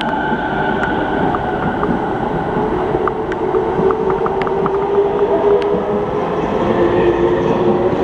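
JR East E217-series electric train moving past along a station platform: steady running noise with a whine held at several pitches, and scattered sharp ticks.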